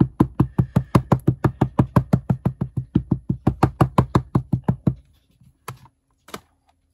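Rapid, even tapping of an Archival Ink pad against a rubber stamp to ink it, about seven soft knocks a second, stopping about five seconds in. Two single knocks follow near the end.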